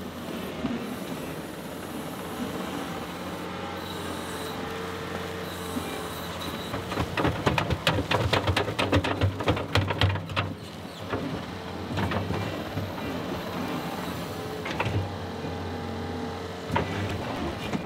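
John Deere 325G compact track loader's diesel engine running steadily as the machine drives up. About seven seconds in, the bucket dumps its load of dirt, a rush of clattering clods and stones lasting about three seconds.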